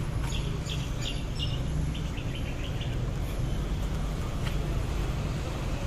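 Street ambience: a steady low hum of traffic, with a few short, high bird chirps in the first half.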